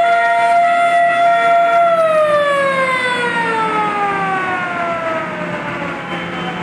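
Vintage fire engine's siren: it holds a steady wailing note for about two seconds, then winds down in a long falling glide and fades. Short car-horn toots sound under it in the first two seconds.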